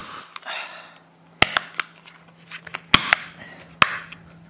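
Sharp plastic clicks and snaps as a white plastic mirror mount is pressed onto the back of a car's side-mirror glass, its clips snapping into place. The clicks come in small groups, a couple about a second in, two around three seconds, and one more near the end, with a light rustle of handling between them.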